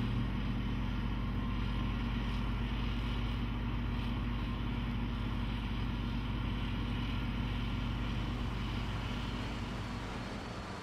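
Pre-war BMW roadster's engine running steadily as the car drives along, a low even drone that fades slightly near the end.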